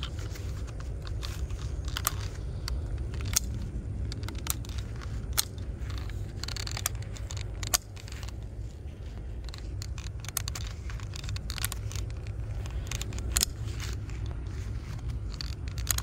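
Garden hose spray nozzle watering soil: a faint hiss of spray under a steady low rumble, with scattered sharp clicks about once a second.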